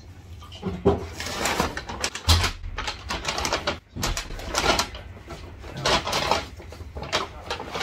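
Brown paper carrier bag rustling and crinkling as takeaway containers are lifted out, with foil and plastic food tubs knocked down onto a wooden table. It comes in a run of uneven rustles and clatters with short pauses.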